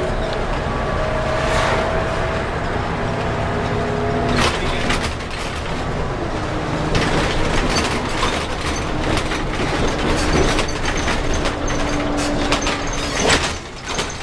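Cabin sound of a Scania L94UB bus under way, its rear-mounted Scania 9-litre six-cylinder turbo diesel and ZF five-speed automatic running, heard from the front of the bus. A whine rises slowly in pitch over the first few seconds, and from about four seconds in the body rattles and knocks.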